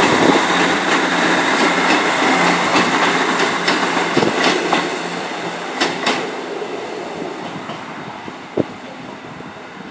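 East Midlands Trains two-car diesel multiple unit running past and pulling away, its engine note and wheel noise fading as it goes. A few sharp clicks of the wheels over rail joints or points come near the middle and once more near the end.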